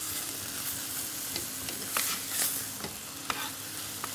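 Food sizzling as it fries in a pot on the stovetop and is stirred, a steady hiss with a few light clicks of a utensil about two, three and four seconds in.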